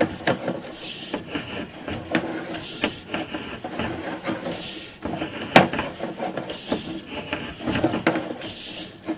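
Sewer inspection camera's push cable being fed down the line: irregular rubbing and clicking, with a short hiss about every two seconds.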